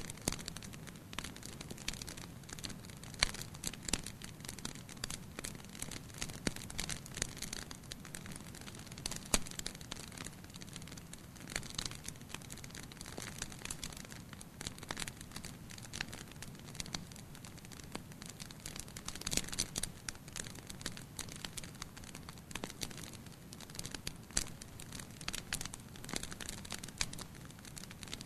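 Fire burning in a fireplace, crackling steadily: irregular sharp snaps and pops over a low rumble of the flames, with a few louder pops now and then.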